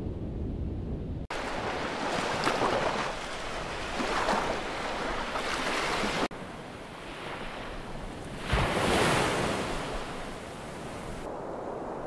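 Ocean surf: waves breaking and washing up a beach in repeated swells. The loudest surge comes about three-quarters of the way through. A low wind rumble is heard before an abrupt cut about a second in.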